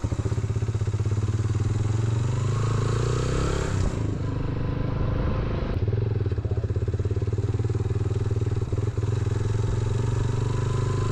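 Motorcycle engine running while the bike is ridden along a dirt lane. The engine note climbs for a couple of seconds and drops about four seconds in, then runs steadily.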